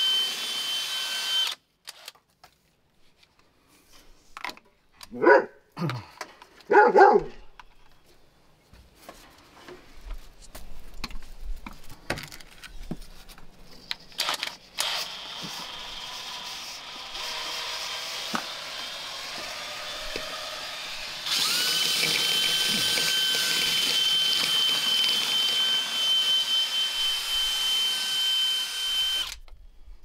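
DeWalt cordless drill spinning a flexible dryer-vent cleaning rod and brush in the vent duct, with a steady high motor whine. It runs for about the first second and a half, then spins up again a little after twenty seconds and runs for about eight seconds. A dog barks twice, about five and seven seconds in.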